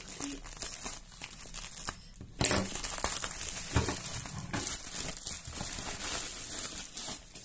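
Pink plastic bubble wrap crinkling and rustling as hands snip into it with scissors and pull it open around a boxed item. The crinkling gets much louder about two and a half seconds in.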